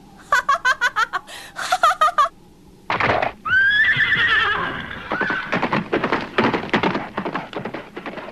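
Quick pulsing vocal sounds for a couple of seconds. About three seconds in, a horse gives a loud, rising, wavering whinny as it rears. Then comes a rapid run of hoofbeats as it gallops off.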